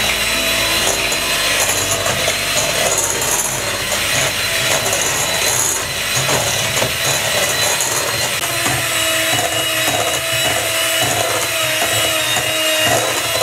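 Electric hand mixer running steadily, its motor whine holding a steady pitch over the rough churning of its beaters as they whip margarine and icing sugar into buttercream.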